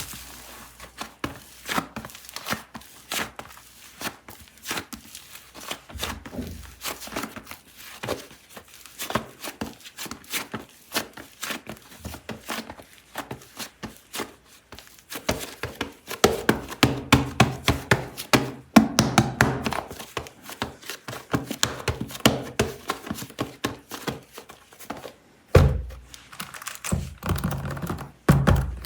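Air-dry clay and its plastic packaging being handled and unpacked: quick crinkles, taps and soft thunks. The sound gets denser from about halfway, and one heavier thud comes near the end.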